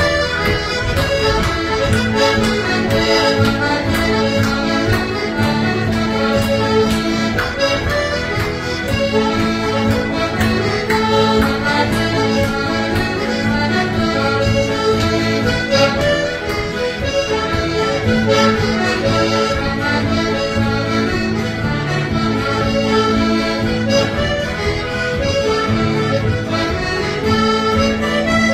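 Accordion playing a tune, with a held low note under the melody that breaks off now and then.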